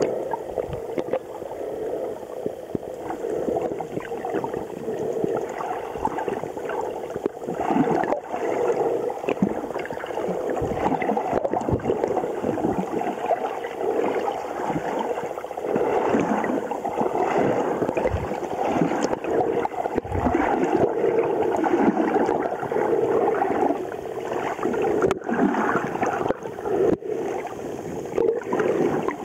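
Muffled underwater water noise picked up through an underwater camera's housing: continuous sloshing and gurgling that swells and fades, with a few sharp knocks now and then.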